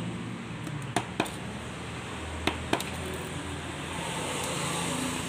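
Two pairs of short, sharp clicks about a second and a half apart, from a hand tool prying and cutting copper windings out of an old water-pump motor's stator.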